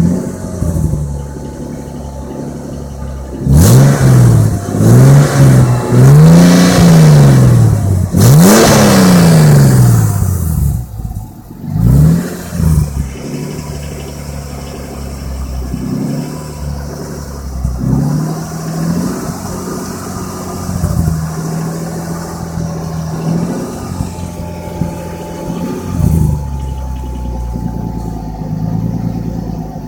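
Ford Falcon XR6 Turbo's turbocharged straight-six engine idling, then revved hard four times in quick succession, each rev rising and falling, before settling back to idle with a few lighter blips. The engine has a knock that the owner suspects is detonation knock or piston slap.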